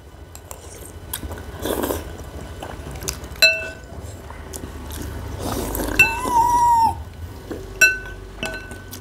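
Metal spoons and forks clinking against ceramic bowls a few times, each clink ringing briefly, amid soft eating noises. A short, steady high-pitched tone sounds a little past halfway.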